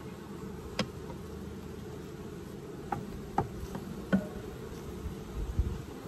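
Honeybees buzzing in a steady hum, with four sharp clicks scattered through the middle and a few low thumps near the end.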